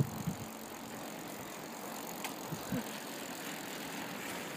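Steady rushing noise of riding a bicycle along a tarmac road, with a short low thump at the start and a few softer thumps around the middle.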